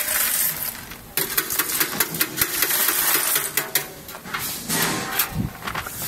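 Cracked candlenuts, hard shell fragments and kernels, falling from a nut-cracking machine's chute and clattering into a plastic crate. From about a second in they make a dense run of sharp clicks.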